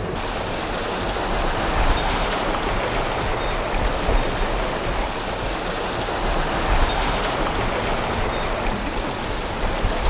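Mountain stream water rushing steadily close by, a continuous even hiss of flowing water.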